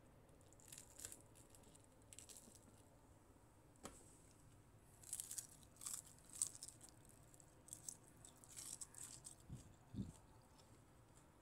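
Faint, scattered crackly crunching of crispy battered fried chicken, with a sharp click about four seconds in and two soft thumps near the end.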